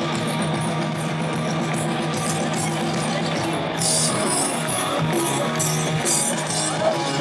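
Live rock band playing loud amplified music with electric guitar to the fore, heard from within a stadium crowd. Sharper, hissy hits join about four seconds in.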